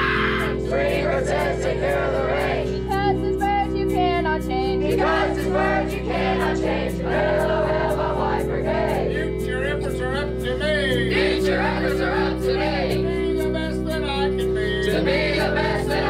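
A group of teenagers singing a camp song together over steady background music.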